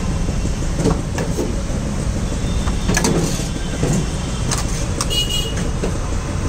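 Steady low rumble of street traffic, with scattered light clicks and taps of a butter knife and bread slices on a steel counter. A brief high-pitched tone sounds about five seconds in.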